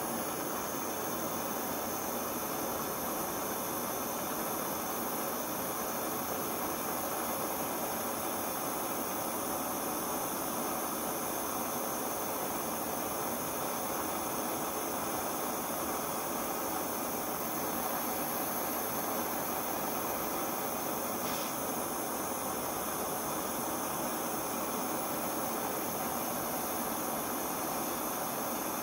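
Gas torch burning with a steady hiss as it reheats a small mild-steel part coated in case-hardening compound, the second heating before the quench.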